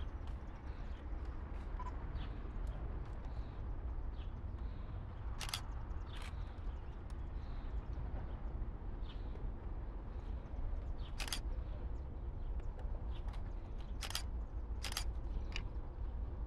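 Outdoor background: a steady low rumble with faint scattered clicks and high chirps, and several sharp ticks, two about six seconds in, one about eleven seconds in and two near the end. No train is heard passing.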